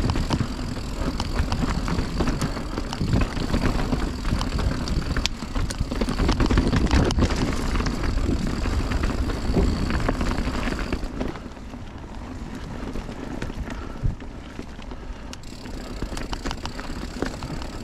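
Mountain bike being ridden along a dirt trail: wind rushing over the camera microphone, tyres on the ground, and frequent clicks and rattles from the bike over bumps. The rush is louder for the first eleven seconds or so, then eases.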